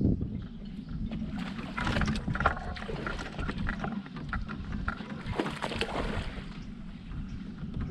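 Hooked largemouth bass thrashing and splashing at the water's surface as it is fought to a kayak, in irregular splashy clusters over a steady low rumble.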